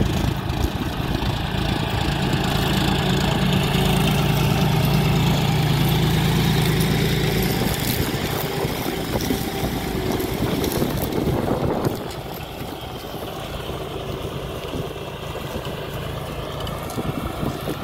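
John Deere tractor's diesel engine running steadily under load while pulling a disc plough through the soil. It is loudest over the first several seconds and drops noticeably about twelve seconds in.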